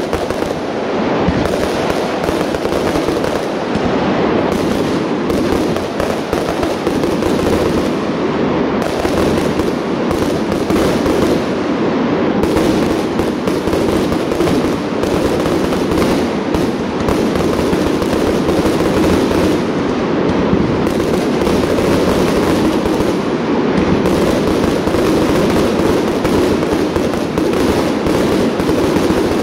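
Professional aerial firework display: a continuous barrage of shell bursts and crackle, the bangs following one another so closely that they run together without a pause.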